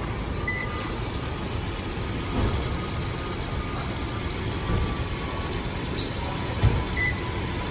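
Toyota Land Cruiser engine idling steadily during a charging-voltage check, the alternator holding about 13 volts with no fault found. Two short high beeps, one about half a second in and one near the end, and a brief sharp click about six seconds in.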